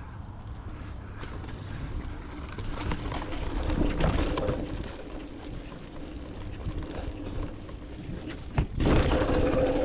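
Mountain bike riding down a dirt trail: wind on the microphone and the bike rattling over the ground. It gets louder about three to four seconds in and again near the end, with a steady tone over the noise at those times, and there is a hard knock about eight and a half seconds in.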